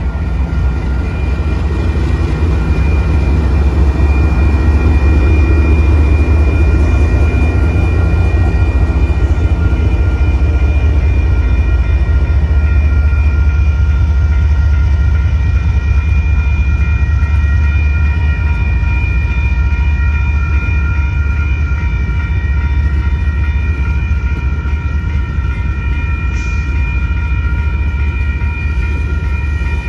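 Union Pacific manifest freight train passing close by: a trailing diesel locomotive goes past, then the freight cars roll by with a loud, steady rumble of wheels on rail. A steady high ringing tone sits over the rumble.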